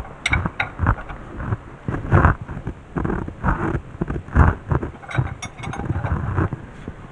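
Irregular low thuds and rumbling, with a few short sharp metallic clicks about a third of a second in and a quick cluster of them around five seconds in: handling and tool noise from work on a car engine.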